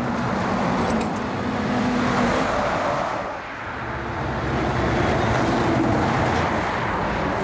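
Road traffic: motor vehicles passing, engine and tyre noise swelling twice, the second pass about halfway through.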